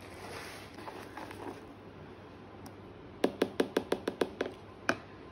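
A whisk knocking against the side of a plastic mixing bowl as batter is stirred: a quick run of about eight taps starting about three seconds in, then one more tap near the end.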